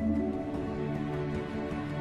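Background music: soft, slow new-age instrumental with sustained chords.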